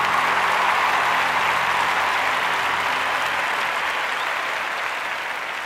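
Audience applauding: a steady wash of clapping that slowly fades out over the last couple of seconds.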